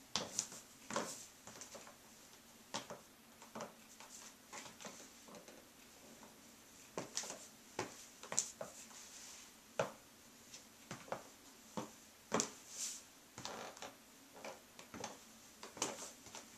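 High-heeled stiletto pumps clicking on a ceramic tile floor: irregular footsteps and shifts of weight, some sharp clicks coming in quick pairs.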